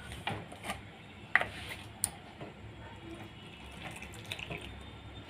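Water poured from a plastic bottle into gram-flour batter in a plastic bowl, with a wire whisk clicking against the bowl now and then.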